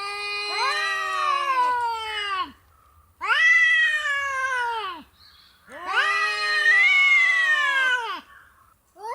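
Domestic cat giving long, drawn-out meows: three calls of about two seconds each, each sagging in pitch as it ends, with a fourth starting at the very end.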